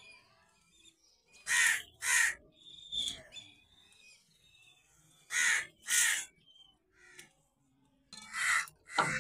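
Crow cawing: three pairs of harsh calls, the two calls in each pair about half a second apart.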